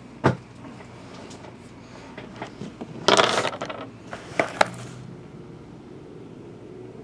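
Trading-card box being handled on a table: a knock near the start, then a short scrape of cardboard about three seconds in and two sharp taps just after, as the box is picked up.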